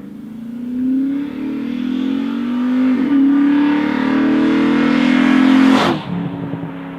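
Ford BA Falcon XR8 V8 on an aftermarket X-Force mild-steel cat-back exhaust with high-flow stainless cats, accelerating hard with the exhaust note climbing in pitch. About three seconds in the pitch dips as if shifting up, then climbs again. Near six seconds the pitch drops suddenly and the sound fades.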